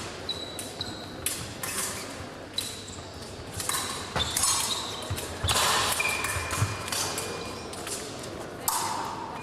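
Épée blades clashing in quick, irregular metallic clicks, some ringing on briefly as pings, with the fencers' feet stamping on the piste in low thumps.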